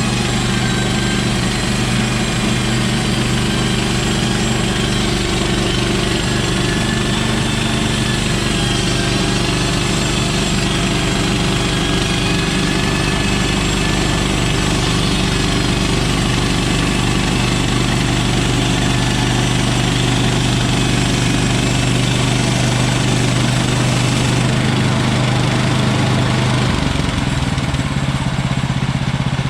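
Woodland Mills HM130 Max bandsaw mill's gas engine running steadily under load while the band blade cuts through a log, with a wavering high-pitched whine over the engine. Near the end the high whine drops away and the engine note changes.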